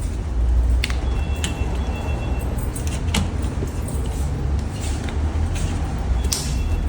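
Scattered clicks and light knocks from a washing machine's drain hose and its plastic bend-guide clip being handled and fitted, over a steady low rumble.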